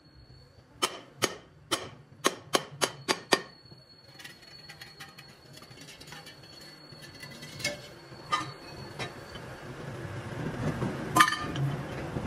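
Steel wheel rims and a wheel disc being handled, metal on metal: a quick run of about seven sharp clinks and taps, then a low scraping noise that grows louder, with a few more single knocks.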